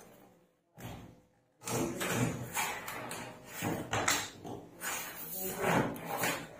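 Stiff cardboard panels being flexed, slid and slotted together: uneven scraping and rustling with soft knocks. A brief near-silent gap comes about a second in.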